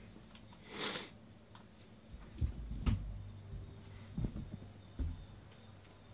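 A short breathy rush about a second in, then a few soft low thumps and clicks of objects being handled or set down on a table.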